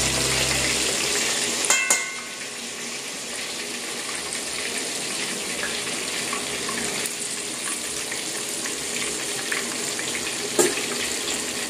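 Cornstarch-and-egg-coated chicken drumsticks deep-frying in a stainless steel pan of oil: a steady crackling sizzle. A sharp click comes about two seconds in and another near the end.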